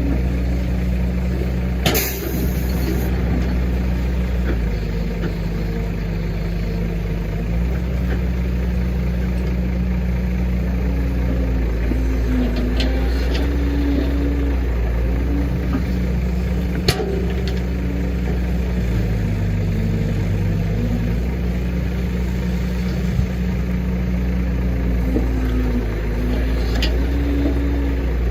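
Case 145D zero-swing excavator's diesel engine running steadily, with its hydraulic whine rising and falling as it digs and loads dirt into a dump truck. Two sharp knocks stand out, one about two seconds in and one about seventeen seconds in.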